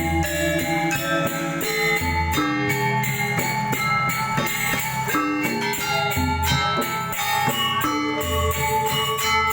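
Balinese gamelan ensemble playing: metallophones ring out interlocking struck tones over quick drum and cymbal strokes, with a deep low tone returning every couple of seconds.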